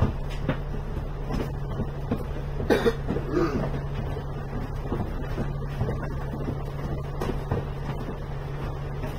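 Alexander Dennis Enviro 500 MMC double-decker bus idling at a stop, heard inside the cabin: a steady low engine hum with scattered light clicks and rattles. A short louder sound, like a cough, comes about three seconds in.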